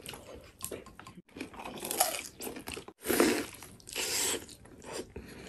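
Close-miked eating sounds: bites and chewing with crunching, in short snippets that break off abruptly about a second in and again near three seconds.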